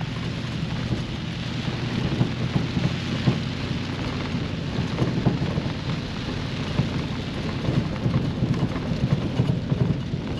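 Heavy rain pouring down on a moving Toyota Land Cruiser 79, with a dense patter of drops over a steady low rumble of the engine and tyres on a wet dirt road.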